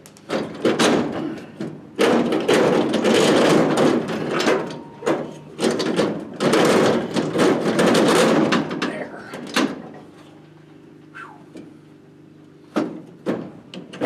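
Clattering and scraping of hand work on a car's pedal assembly and firewall bracket, metal parts knocking and rattling for most of the first ten seconds, then a few separate clicks near the end.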